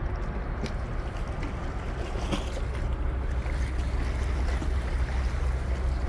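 Steady low rumble and hiss of wind and harbour water, a little louder after about four seconds.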